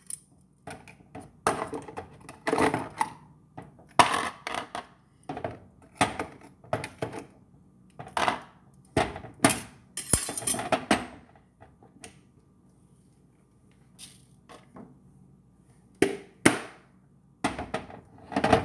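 Scattered clinks and knocks of a mini crockpot and its lid being handled and set down, with a quieter stretch a little past the middle.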